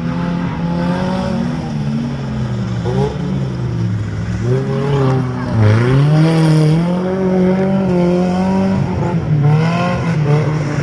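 An off-road pickup truck's engine revving hard as it drives over dirt mounds, its pitch rising and falling with the throttle. About halfway through the pitch drops sharply, then climbs again as the engine revs up.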